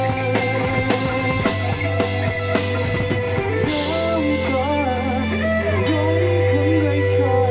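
Live rock band playing: electric guitar and bass holding sustained notes under a wavering melody, with a drum kit. The drumming is busy for the first few seconds, then thins out.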